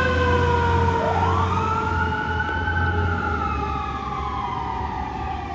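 Fire engine siren wailing: one long rise about a second in, then a slow fall in pitch, growing fainter as the engine drives away, over the low rumble of the truck.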